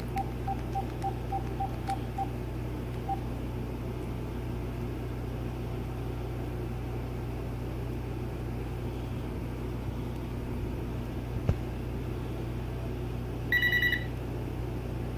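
Telephone keypad beeping as a number is dialed: about four short beeps a second for the first two seconds, then a steady low hum. Near the end, a short burst of pulsed electronic ringing from the GE 26990GE1-D 900 MHz cordless phone as the call comes through.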